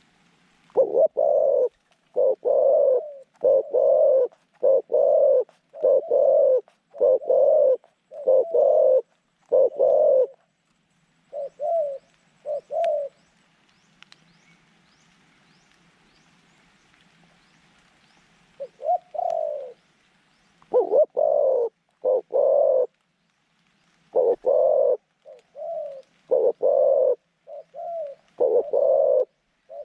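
A decoy dove cooing in long runs of repeated coos, about one a second, breaking off for several seconds in the middle and then starting again.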